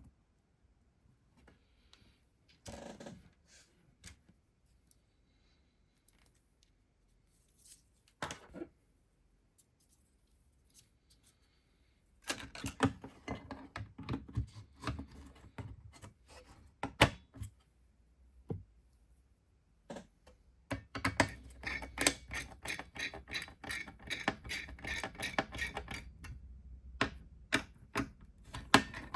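Small clicks, taps and knocks of hands working on a desktop computer: a few scattered clicks, then quick runs of clicking and tapping from about twelve seconds in and again from about twenty-one seconds in.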